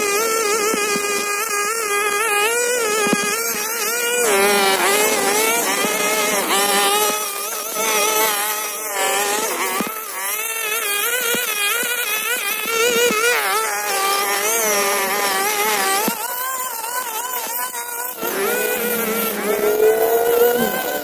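Hyper Tough 25 cc two-stroke string trimmer running at high revs while cutting grass, its pitch wavering up and down with the throttle and dipping briefly a few times.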